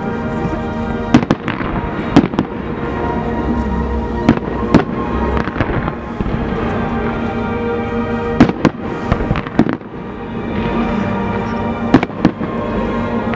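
Fireworks going off: an irregular run of sharp bangs and crackles, several close together at times, with the loudest reports about a second in, two seconds in, around eight and a half seconds and around twelve seconds in.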